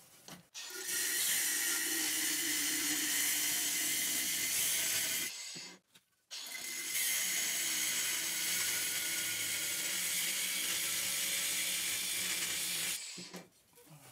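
Cordless angle grinder cutting through the steel shell of a hermetic refrigerator compressor, in two long runs of high grinding noise with a brief stop about six seconds in.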